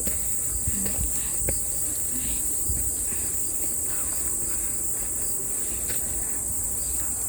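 A steady, high-pitched chorus of insects droning without a break, with a low rumble and a few faint clicks underneath.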